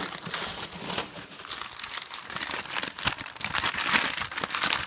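Packing wrap crinkling and rustling as it is pulled off a boxed device, a dense run of small crackles that grows busier around three to four seconds in.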